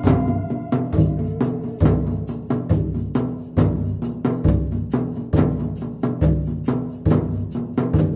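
Instrumental background music with a steady low drum beat a little more than once a second; fast, high ticking percussion comes in about a second in.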